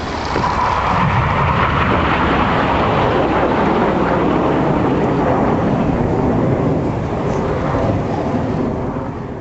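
BAE Hawk T1 jets, with Adour turbofan engines, flying past: a loud, steady jet roar that swells in the first second, holds, and eases slightly near the end.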